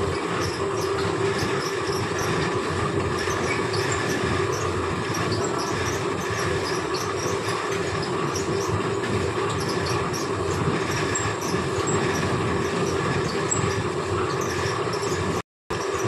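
Fabric checking machine running steadily as cloth winds through its rollers: a constant mechanical rumble with a steady hum and many light rattling ticks. The sound cuts out abruptly for a moment near the end.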